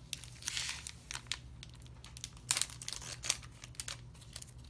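Foil Pokémon booster pack wrapper crinkling and crackling in irregular bursts as it is handled and opened, with the sharpest crackles about two and a half and three and a third seconds in.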